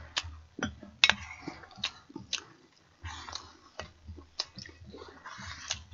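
Quiet eating sounds: chewing, and irregular clicks and small knocks of a wooden ladle in a ceramic pot as stew is scooped out.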